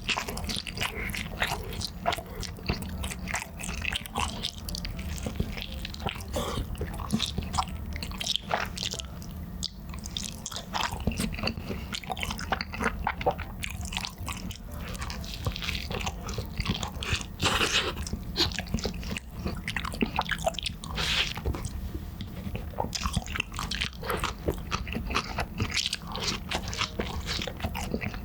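A person chewing and biting into cheese meatball pizza, with many short mouth clicks and smacks throughout.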